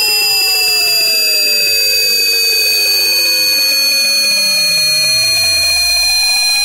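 Electronically generated high-pitched tones: several steady whines that sink slowly in pitch, over a lower tone sliding steadily down to a deep hum.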